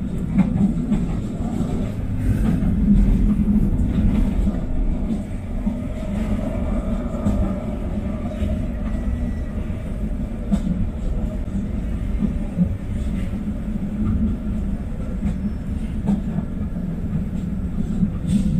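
LRT Line 1 light-rail train running: a steady low rumble with a click now and then.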